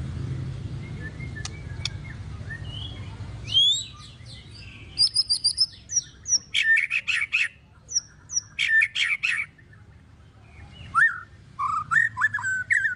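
White-rumped shama (murai batu) singing loud, varied phrases of rapid repeated notes, whistles and chatter in several bursts with short pauses, starting a few seconds in; its song carries mimicked 'isian' phrases. A low hum underlies the first few seconds.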